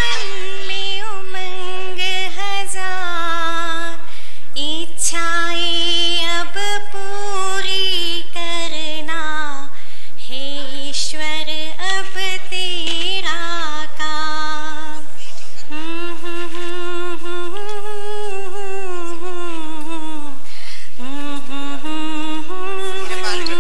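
A woman singing a slow melody in long, held notes that slide and bend between pitches, with short pauses between phrases.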